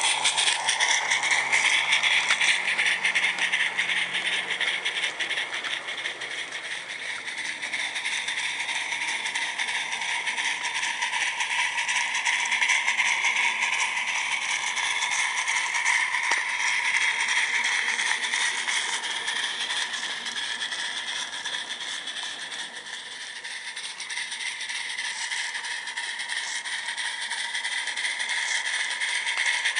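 16 mm scale live steam locomotive, a modified Locobox Sophie fitted with a Summerlands Chuffer, running with rapid chuffing while its train of small wagons rattles over the track. The sound grows and fades twice as the train passes.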